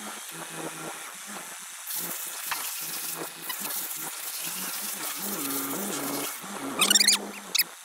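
Telescoping forklift engine running under hydraulic load, its pitch stepping up and down as the boom extends to push a stack of hay blocks into the trailer. A hissing noise runs through the middle, and a short loud burst of noise comes near the end.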